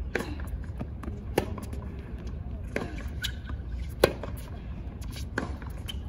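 Tennis rally on a hard court: sharp pops of racket strings hitting the ball and the ball bouncing, about one every second and a half. The loudest is a forehand hit by the near player just after the midpoint, over a murmur of crowd voices.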